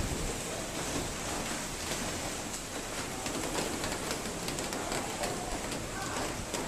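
Steady rain falling outdoors, a continuous hiss with many individual drops ticking on hard surfaces.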